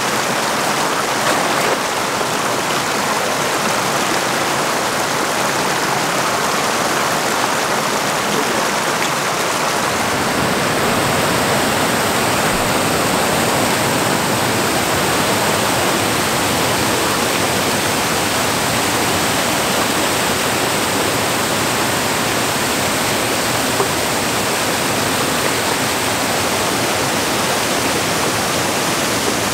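Muddy floodwater pouring over a small dam's overflow wall and rushing down a rocky channel, a steady loud rush of water: the lagoon is full and overflowing after heavy rain. About ten seconds in the rush becomes fuller and deeper.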